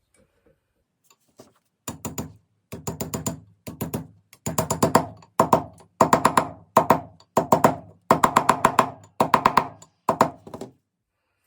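Hammer striking a punch to drive a tight retainer ring down a bicycle kickstand's pivot: rapid ringing metal taps in bursts, starting about two seconds in and stopping shortly before the end.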